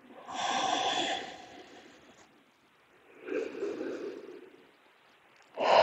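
A person breathing slowly and deeply in a controlled relaxation exercise. Three long, airy breaths come about two and a half seconds apart, and the first and last are louder than the one between.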